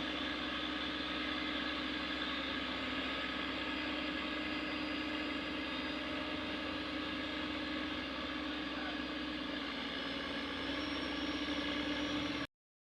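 A vehicle engine running steadily with a constant hum, cut off suddenly near the end.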